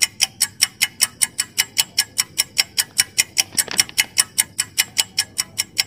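Countdown-timer ticking sound effect: sharp, evenly spaced clock ticks, about five a second, marking the time to answer a quiz question.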